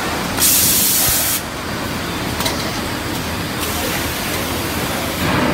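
A sharp pneumatic hiss at the forging press lasting about a second, starting about half a second in, over the steady running noise of the automatic forging line.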